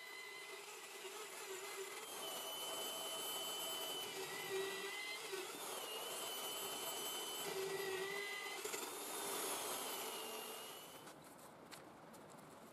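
Bench drill press running, its bit boring into a metal workpiece with a wavering, squealing whine over the motor. The drilling stops about eleven seconds in, leaving faint light taps.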